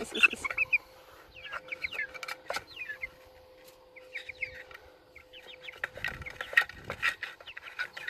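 Young white chicken giving short, scattered clucks and cheeps while it squirms under a handler's hands in a wooden weighing box, with a few sharp knocks from its scrabbling against the box.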